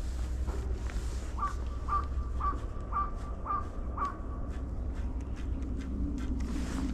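A crow cawing six times, about half a second apart, over a steady low rumble.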